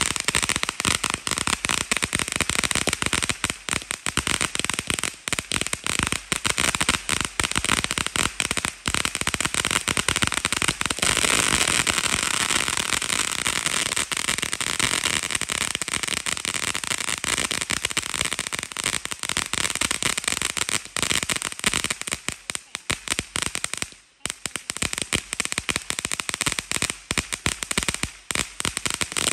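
Ground fountain firework spraying sparks with a continuous hiss and rapid, dense crackling. The spray grows thicker and louder about a third of the way in, then thins out briefly near the end.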